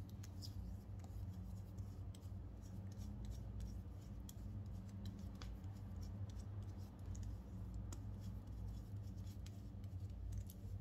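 Fingertips patting and rubbing on skin coated in gel, close to the microphone, making small irregular clicks and light scratchy sounds over a steady low hum.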